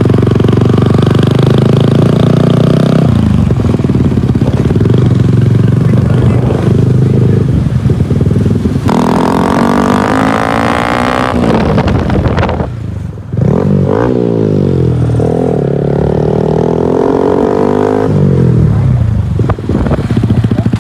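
Vehicle engine running loud, its pitch climbing in several long rising sweeps as it accelerates, with a brief drop in between.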